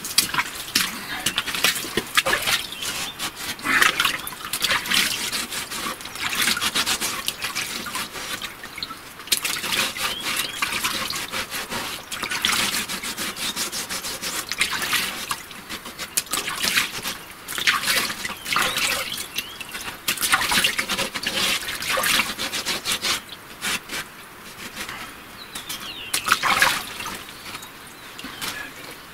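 Shallow muddy water sloshing and splashing in irregular bursts as gloved hands work a knife blade through it, with scattered small clicks and scrapes.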